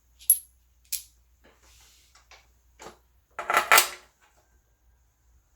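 Small metal hardware, bolts and washers, clinking as it is handled: two sharp clicks with a bright ring near the start, then a short rattling clatter about three and a half seconds in.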